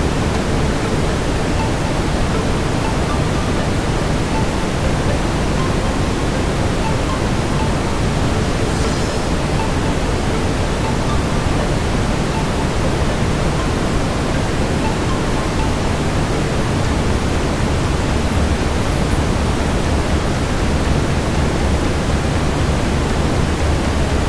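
Steady brown noise, an even deep hiss heaviest in the low end, with faint crackles of a wood fire in the fireplace mixed in.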